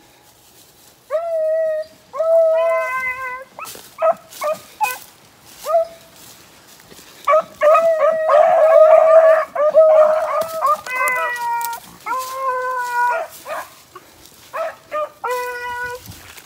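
Pack of beagles baying on a rabbit run: a string of ringing howl-like bays and shorter chops, starting about a second in. For about three seconds near the middle, several hounds bay at once.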